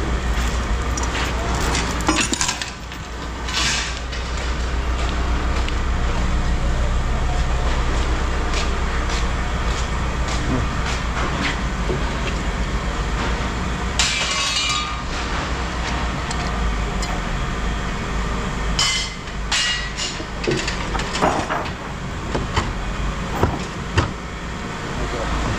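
A vehicle engine idling steadily under scattered metal clanks and knocks, with a brief hiss about halfway through.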